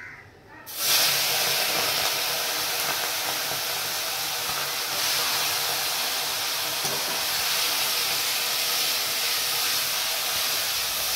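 Prawns dropped into hot oil in a wok, sizzling at once: the frying hiss starts suddenly about a second in and stays loud and steady.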